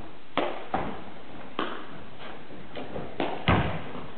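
Footbag net play: a series of sharp knocks from feet striking the footbag and shoes landing on a wooden gym floor, about six in all, with the loudest near the end, each echoing in the hall.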